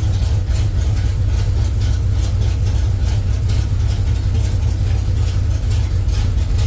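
Truck engine running at a steady idle on a self-learning FAST throttle-body fuel injection system, which is adjusting the idle toward about 850 rpm while it learns.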